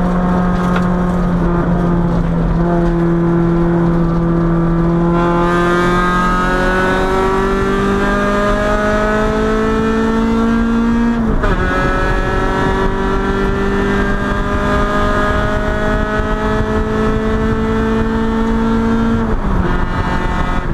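Honda B20B 2.0-litre four-cylinder engine heard from inside the car, pulling at high revs under power on a track lap. Its pitch climbs slowly, drops sharply at a gear change about halfway through, climbs again, and drops once more near the end, over steady road and wind noise.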